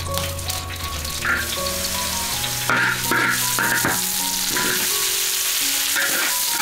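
Minced ginger and garlic sizzling in hot oil in a large iron wok, with a metal ladle scraping the pan; sliced lettuce roots go in and are stir-fried, and the sizzling gets louder about halfway through.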